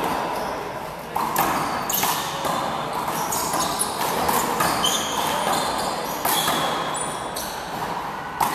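Small rubber handball smacked by hands and against the wall in a fast rally, giving a string of sharp slaps roughly once a second, with sneakers squeaking on the court floor. The hits echo in a large hall.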